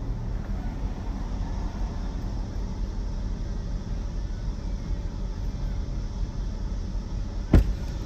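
Car engine idling steadily, heard from inside the parked car's cabin, with a single sharp click near the end.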